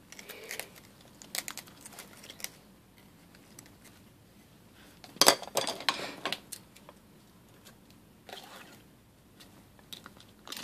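Scattered light clicks and taps of chopsticks and scissors against a live sea urchin's shell and spines, with a louder cluster of clicks about halfway through.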